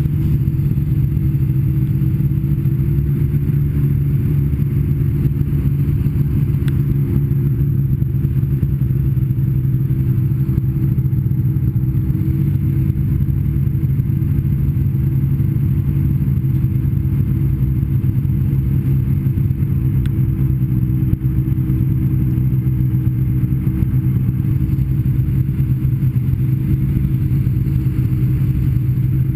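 Snowmobile engine running at a steady speed under way, its pitch holding nearly constant.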